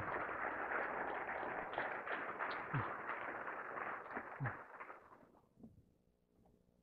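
Audience applauding, with a voice or two calling out, dying away about five seconds in.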